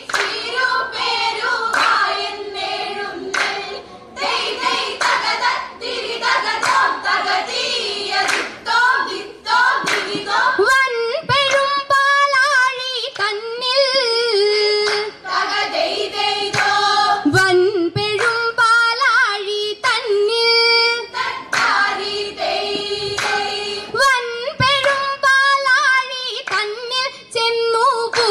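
Group of girls singing a Vanchippattu, the Kerala boat song, in Aranmula style, keeping time with steady hand claps. About ten seconds in, the dense full chorus thins to fewer, clearer voices.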